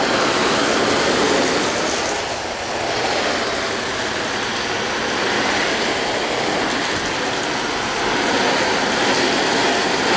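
Water spraying steadily from a garden hose nozzle onto a painted Tyvek tarp, washing down the sheet; the spray dips briefly about two and a half seconds in.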